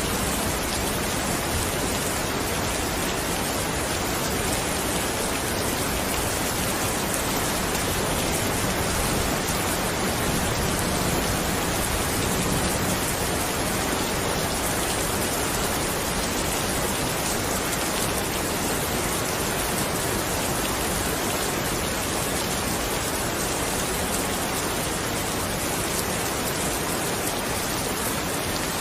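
Steady rain falling, an even unbroken hiss of drops with no thunder or distinct events.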